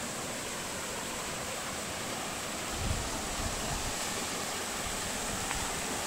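Small waterfall spilling over layered rock ledges into a shallow creek pool, a steady rush of falling water. A brief low rumble comes in about three seconds in.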